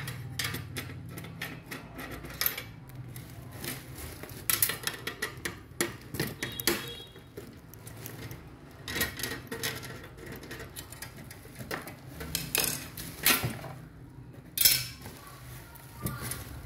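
Irregular metallic clicks and clinks as a screwdriver and the sheet-metal tray of a photocopier main controller board are handled.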